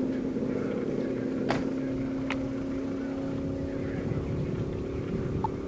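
Land-speed race car's engine running down the course on the salt flats, heard from a distance as a steady drone. Two brief sharp clicks come about one and a half and two and a half seconds in.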